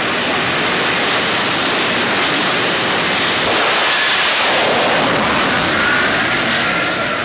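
Jet dragster's turbojet engine running at full power with its afterburner lit: a loud, steady rushing noise with a faint high turbine whine above it, swelling a little midway.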